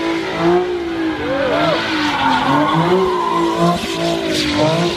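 Nissan 370Z's V6 held high in the revs, rising and dipping as the throttle is worked, with the rear tyres squealing as they spin through donuts.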